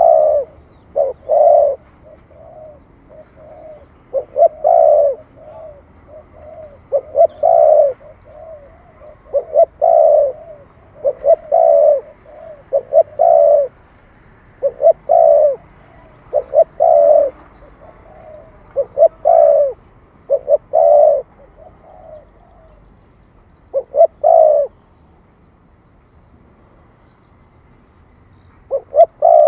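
Spotted dove cooing: repeated phrases of short, low coos in quick groups, with brief pauses between phrases and a longer pause near the end before it starts again.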